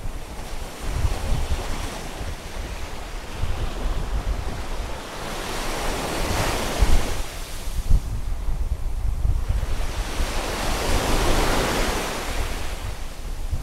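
Sea waves surging and breaking against the rocks of a breakwater, with the rush of water swelling twice, about six and eleven seconds in. Strong wind buffets the microphone with a low rumble throughout.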